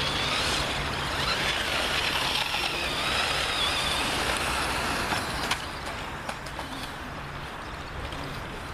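Radio-controlled cars driving on a dirt path, their motors giving a wavering high whine over tyre and ground noise. The whine is louder for the first five seconds, a sharp click comes about five and a half seconds in, and it is quieter afterwards.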